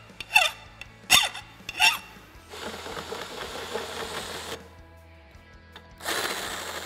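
A hand file rasping four short strokes across the cut end of a steel tie rod tube, then a cordless drill running a deburring bit inside the tube's end in two bursts of about two seconds each, clearing the burrs so the tube can be tapped.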